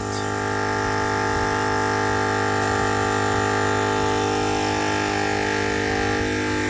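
A steady machine hum that holds one even pitch.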